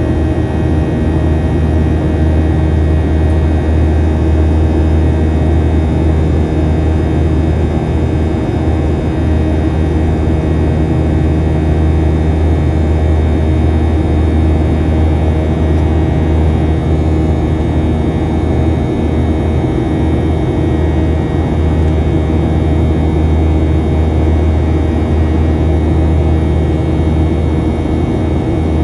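Boeing 737-800's CFM56-7B turbofan engines and airflow heard inside the cabin beside the wing in flight: a steady low drone with several steady whining tones above it and no change in power.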